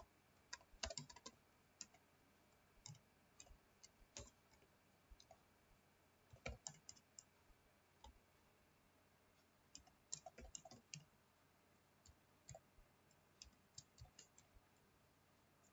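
Faint typing on a computer keyboard: irregular clusters of keystroke clicks with short pauses between them.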